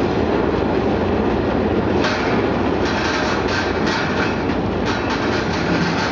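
Brush-type fruit and vegetable washing machine running: a steady mechanical rumble and hum from its motor and rotating brush rollers, with irregular clattering from about two seconds in.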